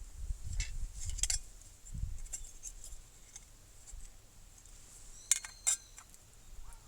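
Light metallic clicks and taps of camp cookware and utensils, with two sharp, ringing metal clinks a little after five seconds in.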